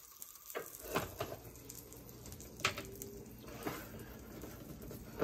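A few light knocks and clicks of a rubber spatula and the pan as an omelet is folded in a nonstick pan. A low steady hum starts about a second in.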